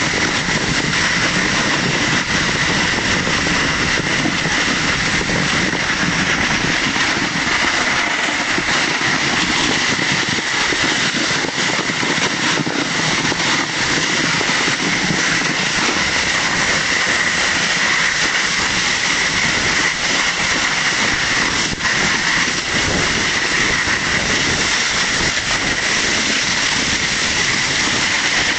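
Sled sliding fast over packed snow: a continuous loud scraping hiss with a low rumble, and a few light knocks.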